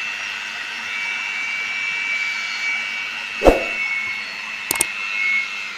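Foster FEB-650VBL 650 W electric blower running in vacuum mode, a steady high motor-and-fan whine as it sucks up scraps of paper. A single loud knock comes about three and a half seconds in, and a couple of short clicks follow about a second later.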